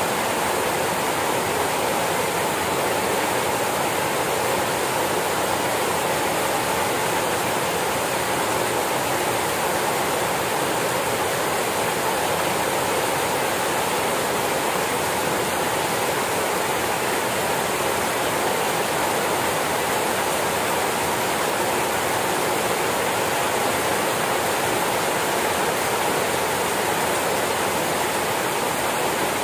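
Rain pouring steadily, a loud, even hiss with no let-up.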